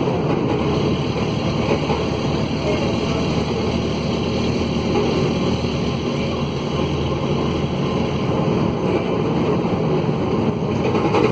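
Mercedes-Benz OM904LA four-cylinder turbodiesel of an OH-1115L-SB midibus running steadily under way, heard from inside the bus. Its exhaust is broken, which makes the engine noise excessive.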